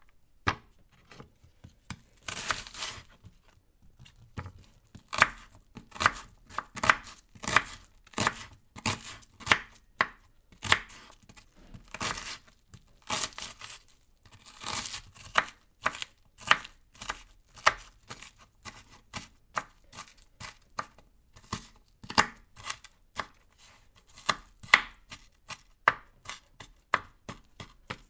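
Knife chopping vegetables on a cutting board: a long run of sharp, uneven strikes, one to three a second, with a few longer scraping sounds in between.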